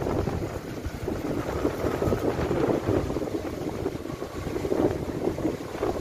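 1978 Cadillac Eldorado's V8 engine idling while parked, with wind buffeting the microphone.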